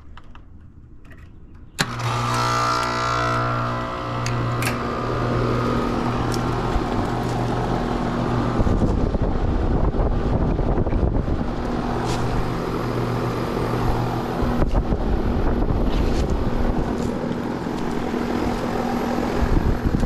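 A Rheem heat pump's outdoor unit kicks on about two seconds in, with a click and then its compressor humming and condenser fan running steadily.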